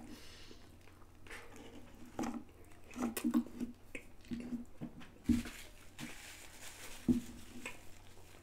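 A person chewing a big mouthful of a fried-chicken burger stuffed with chips, with irregular wet mouth sounds and a couple of sharper smacks past the middle.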